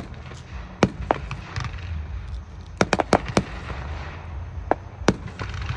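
Fireworks display: sharp bangs of shells bursting at irregular intervals, with a quick run of several cracks about three seconds in, over a steady low rumble.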